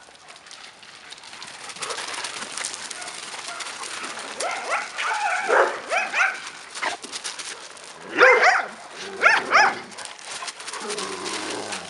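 Several dogs and puppies barking and yipping in short bouts, about halfway through and again a couple of seconds later, over steady crunching of footsteps on loose gravel.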